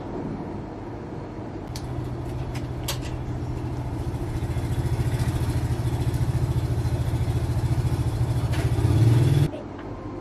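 An engine running with a low, rapid pulse that grows steadily louder, then cuts off suddenly near the end. A few sharp clicks come near the start.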